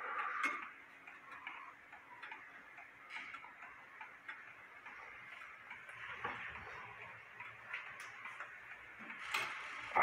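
French Morbier wall clock ticking faintly as its pendulum swings, with a couple of louder knocks near the end.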